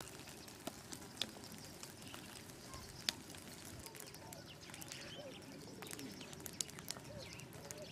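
Faint open-air nature ambience: scattered sharp ticks and many short, arching chirps and calls from small animals over a soft steady background hiss.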